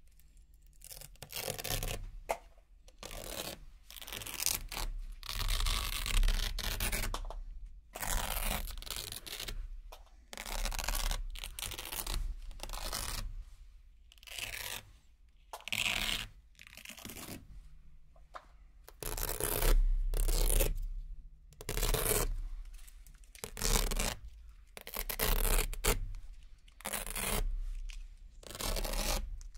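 Velcro hook-and-loop nano cable ties being ripped off a Velcro surface one after another: a long run of tearing rips, each lasting about a second, with short pauses between.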